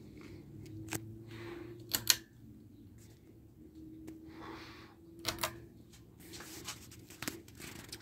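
1987 Alaska 42-inch ceiling fan running with a faint steady motor hum. A few sharp clicks come from the pull-chain switches; the loudest is a double click about two seconds in, as the light kit switches off.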